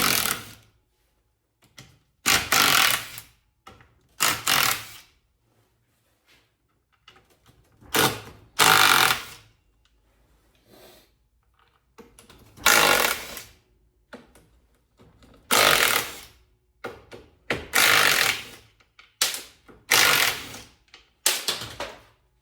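Power impact wrench run in short bursts of about a second each, about eight times, working fasteners on an NP242 transfer case.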